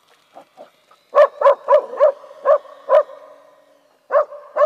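A dog barking: a few soft yips, then a quick run of six sharp barks, a pause of about a second, and two more barks near the end.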